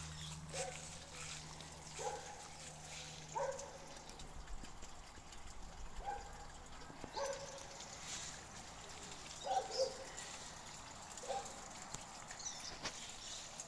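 Short animal calls, one every second or two, with two coming close together about nine and a half seconds in, over faint outdoor background.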